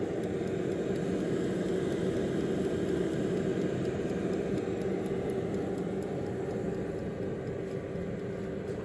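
Tower 4.3-litre air fryer running, its fan giving a steady whirring hum.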